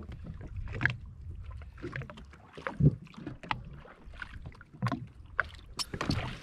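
Water slapping and splashing against the hull of a Sea-Doo personal watercraft, with irregular sharp knocks throughout.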